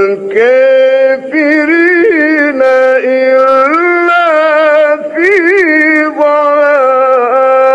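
A man's voice reciting the Quran in a melodic, ornamented style. He holds long notes and winds them through quick trills and pitch turns, in several phrases with brief breaks between them, ending on a long held note.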